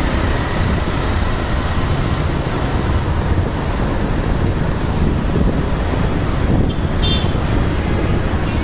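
Steady road traffic and wind rumbling on the microphone of a camera moving along a road: an even, low, unbroken rumble.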